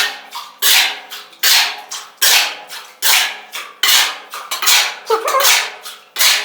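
A run of sharp, loud clattering hits, a little more than one a second, each with a short hissy decay and a faint ringing tone beneath.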